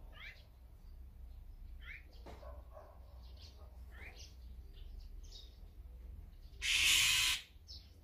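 Azure-winged magpies calling in short, scattered chirps over a low steady rumble. Near the end a loud rushing hiss lasts just under a second.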